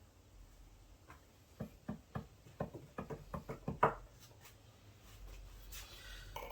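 A quick run of about ten light knocks, hard objects tapping together over about three seconds, the last knock the loudest.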